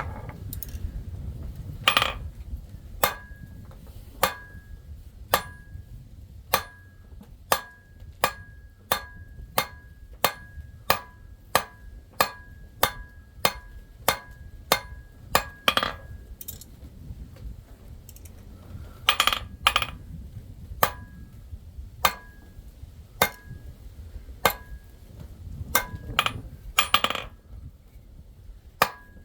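Steady hammer blows on an anvil while forging a silver ring, each strike ringing with a clear two-note metallic tone, about one or two blows a second. The hammering stops for a few seconds past the middle, then resumes with a few heavier, scrappier hits.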